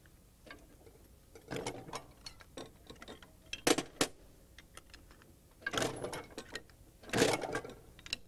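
Metal clunks and clicks of a sheet-metal notcher cutting the hinge notches in sheet steel, a handful of sharp strokes a second or two apart.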